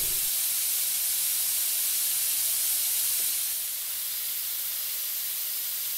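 Steady rushing-air hiss from industrial air-handling plant (dust extraction and compressed-air equipment), dropping slightly in level about four seconds in.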